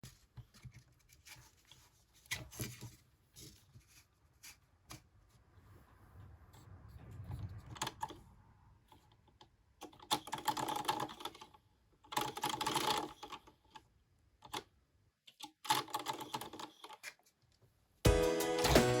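Scattered light clicks and taps of handcraft work on small parts, with a few short bursts of scraping or rustling. Music starts about a second before the end.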